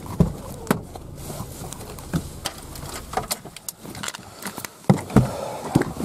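Scattered knocks and clicks inside a car cabin, over a low hum that drops away about four seconds in.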